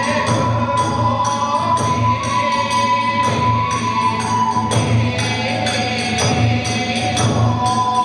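Kagura hayashi accompanying a dance: small hand cymbals clash in a steady quick beat over a low drum, with a long held melody line on top that steps to a new pitch a few times.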